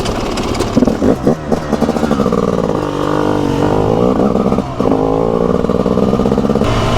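Single-cylinder two-stroke engine of a TM SMR 300 supermoto being ridden, its note falling and rising with the throttle, with a short drop in level about five seconds in.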